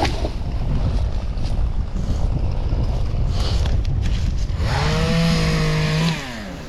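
Two-stroke chainsaw engine with wind rumbling on the microphone. About five seconds in the saw is throttled up to a steady high whine for over a second, then released, its pitch falling back off.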